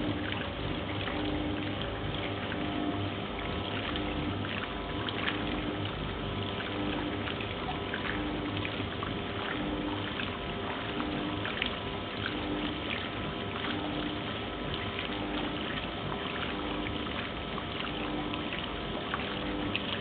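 A 1971 Simpson Fluid Drive washing machine agitating a load on its slow wash: water sloshing and splashing around the clothes over a steady motor hum, with a tone that pulses about once a second.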